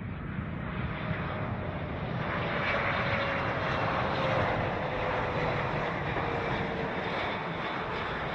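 Boeing 777 jet engines on final approach as the airliner passes low and close: a jet rush that builds over the first few seconds, with a faint whine falling slowly in pitch as it goes by.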